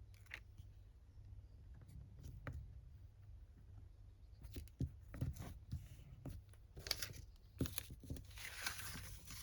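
Faint paper handling: scattered light taps and rustles as paper scraps are placed and pressed down, with a longer rustle of paper near the end.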